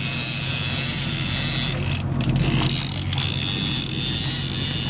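Steady drone of a charter boat's engine running at trolling speed, with the whir of a fishing reel being cranked in against a hooked salmon.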